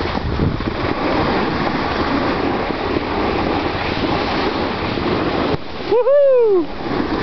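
Steady rushing, scraping noise of a snowboard sliding over packed snow, mixed with wind on the microphone. About six seconds in, a short pitched whoop rises and then falls.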